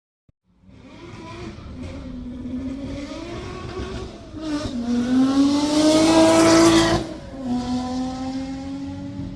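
Lamborghini engine comes in about half a second in and runs. It revs up, rising in pitch and loudness to a peak about seven seconds in, then drops back sharply and holds a steady idle.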